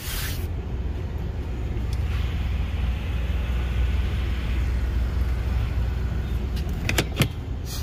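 2020 Chevrolet Colorado pickup's engine idling, a steady low rumble, with a few sharp clicks near the end.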